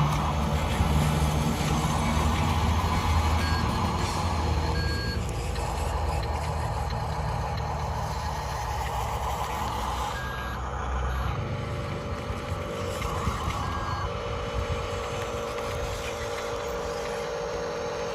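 Remote-control construction truck's simulated truck engine running, with a few short reversing beeps.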